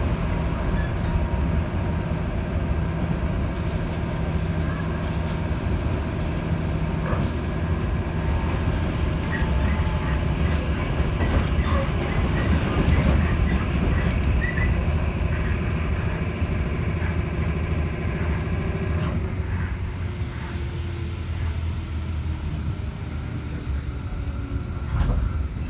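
Cabin sound of a JR 211 series electric train running: a steady rumble of wheels on rail with a motor hum. About two-thirds of the way through the higher sound drops away and a tone falls in pitch, as the train eases off.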